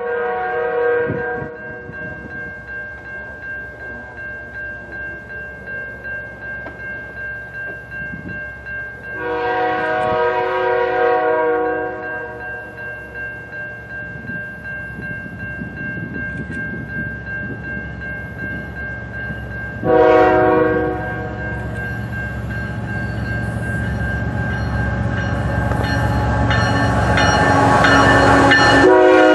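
Multi-chime air horn of a CN ES44AC locomotive sounding the grade-crossing signal as the train approaches: the end of one long blast, a second long blast about nine seconds in, a short blast about twenty seconds in, and the final long blast starting near the end. Between blasts the train's rumble grows steadily louder as it nears.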